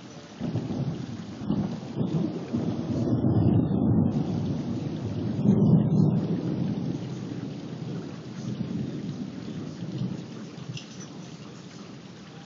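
A long roll of thunder over steady rain. It breaks in suddenly about half a second in, rumbles louder in swells with its loudest peak around six seconds in, then dies away gradually.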